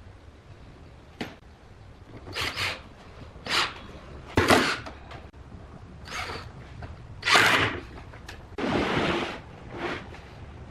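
Wooden furniture parts being handled: a series of about eight short knocks and brief scrapes or slides, unevenly spaced, the longest slide about nine seconds in.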